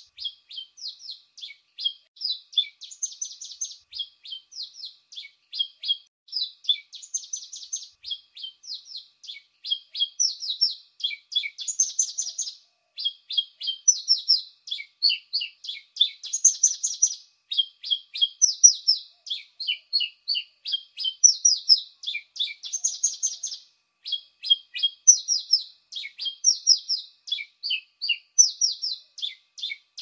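A pipit (burung apung) singing a fast, unbroken stream of short high chirps and trills, phrase after phrase with hardly a pause, the kind of song used as a lure call.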